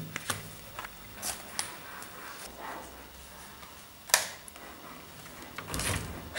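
UNO cards being laid down one after another onto a tabletop: several short sharp slaps, the loudest about four seconds in.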